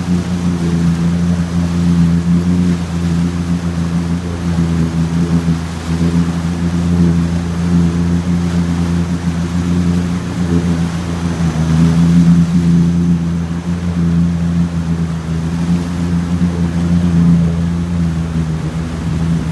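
Boat outboard motor running steadily at speed, a low even drone, with water rushing along the hull.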